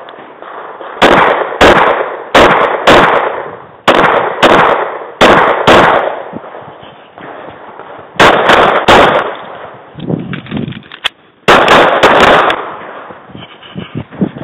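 Semi-automatic pistol fired in rapid strings, mostly quick pairs of shots, well over a dozen in all. There are short gaps of a second or two between strings.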